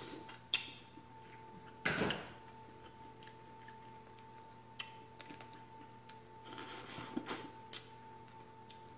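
Boiled shellfish shells crackling and clicking as they are cracked and peeled by hand, in scattered small clicks with a denser crackly patch near the end. A louder eating sound comes about two seconds in. A faint steady hum runs underneath.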